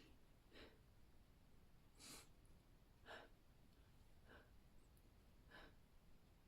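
A person's quick, faint gasping breaths during a sneeze buildup, about six short catches of breath spaced irregularly, with no sneeze breaking out.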